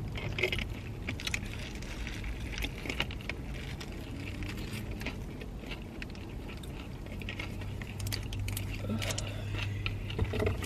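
Close-up eating sounds inside a car: chewing, with scattered crinkles and crackles of a sandwich wrapper and a chip bag. Under them runs a low steady hum that grows stronger over the last few seconds.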